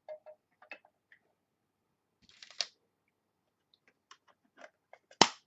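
A magnetic one-touch trading card holder and card being handled: scattered small clicks, a short scrape about two and a half seconds in, and one sharp snap near the end as the holder closes.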